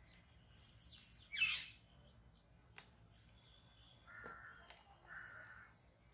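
A bird calling outdoors: one loud harsh call about a second and a half in, then two shorter, even calls about four and five seconds in.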